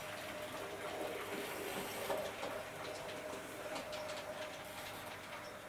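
Hattons OO gauge P class model tank locomotive running on the layout: a faint steady motor hum, with light ticks from the wheels crossing rail joints and points.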